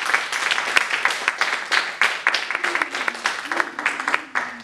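Audience applauding at the close of a live performance, the clapping gradually thinning out and fading, with a few voices underneath.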